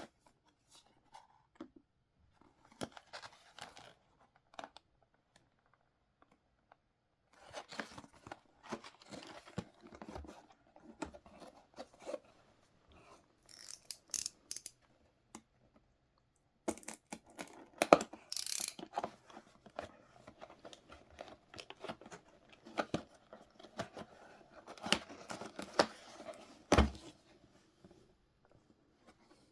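Trading-card box packaging being opened by hand: plastic and paper tearing and crinkling, with small clicks and taps, in irregular bursts with short pauses and one sharper knock near the end.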